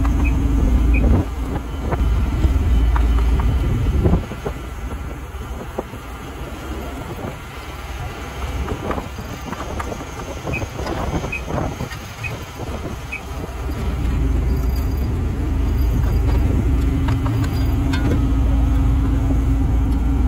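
Paving machinery with a diesel engine running, a heavy low rumble, most likely the asphalt finisher at work. The rumble drops away about four seconds in and comes back up about ten seconds later, with a few clanks in the quieter stretch.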